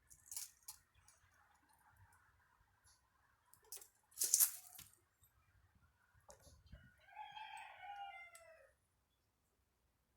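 A rooster crows once, a single call about two seconds long near the end that drops in pitch as it trails off. A sharp knock about four seconds in is the loudest sound, with fainter knocks before it.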